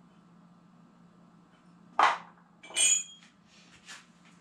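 A sharp knock, then under a second later a ringing metallic clink, as engine main bearing caps are picked up and knocked together.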